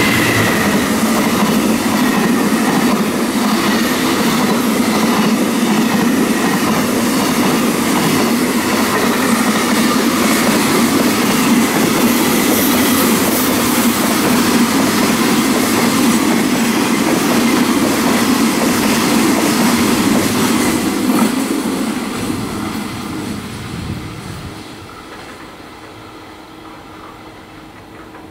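JR Freight EF210 electric locomotive and its long train of container wagons passing close at speed: a steady loud noise of wheels running on the rails, dying away over a few seconds about 22 seconds in as the end of the train goes by.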